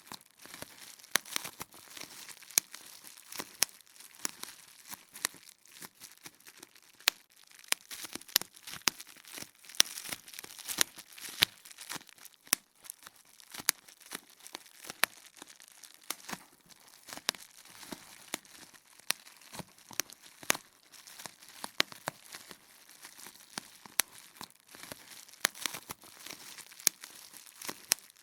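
Bubble wrap popping: irregular sharp pops, several a second, over a steady crinkling of the plastic sheet.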